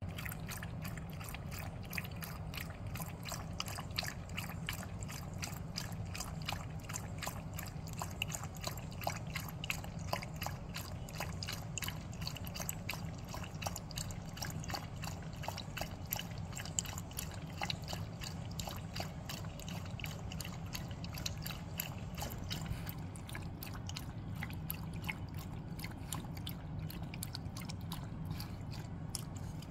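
Dog lapping ice water from a plastic bowl: a steady run of quick wet laps, several a second.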